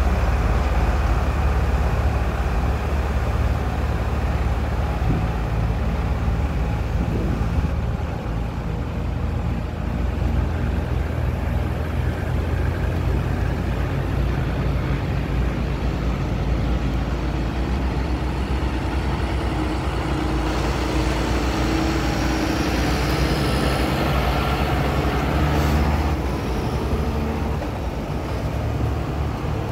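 A line of vehicles in a tractor run driving past one after another, their engines running steadily at low revs: a Land Rover Defender, then a tractor, then a Volvo saloon.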